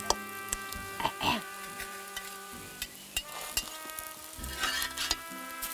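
Potato pancakes sizzling in oil on a wide cast-iron cauldron pan over a wood fire, a steady hiss broken by several sharp clicks and scrapes of a metal spatula against the pan.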